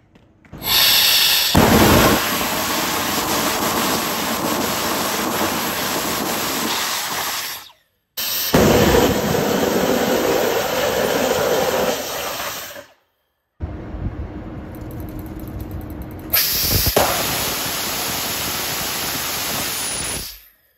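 Small ethanol/gaseous-oxygen liquid-fuel rocket engine test firings: a loud, steady rushing hiss that starts and stops abruptly, three separate burns cut back to back. The last one gets louder partway through.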